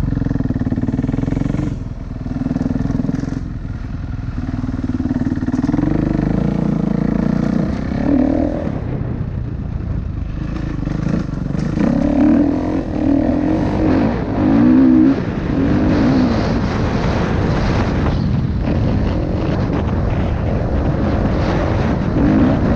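Dirt bike engine being ridden hard, revving up and easing off over and over, its pitch climbing and dropping as the rider accelerates, shifts and slows.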